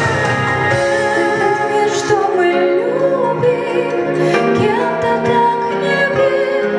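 A song: a woman singing long, wavering held notes over a sustained instrumental accompaniment.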